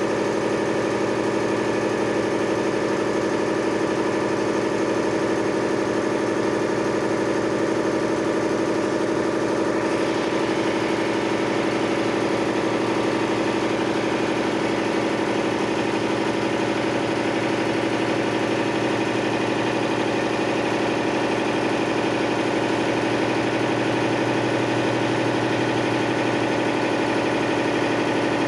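Maruti 7.5 HP piston air compressor on a 500-litre tank running steadily, its electric motor driving the finned cylinder pump with an even mechanical hum and clatter. About ten seconds in, a higher hiss joins and stays.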